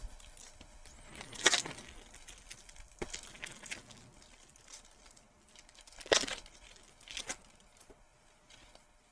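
Foil booster pack wrapper being crinkled and torn open in a few short rustling bursts, the strongest about one and a half seconds in and again about six seconds in, with quieter handling between.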